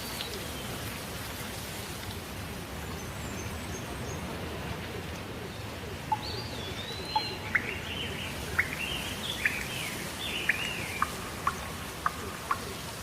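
Steady rain, with birds chirping and whistling over it from about halfway through: a run of short chirps and rising-and-falling whistled calls.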